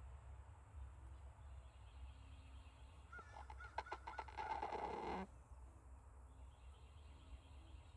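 A rooster snoring: one rattling, pitched sound about two seconds long, starting about three seconds in and cutting off suddenly.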